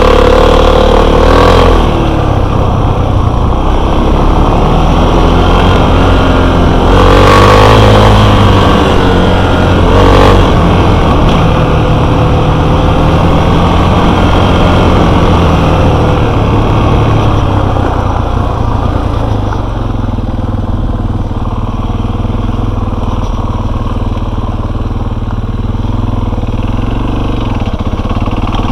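Enduro motorcycle engine running under changing throttle, revving up at the start, about seven seconds in and again about ten seconds in, then settling to a steadier, quieter run through the last ten seconds.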